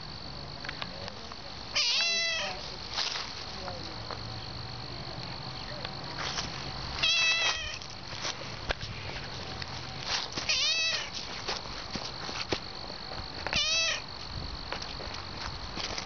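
Domestic cat meowing four times, a few seconds apart. Each meow is short, with its pitch rising and then falling.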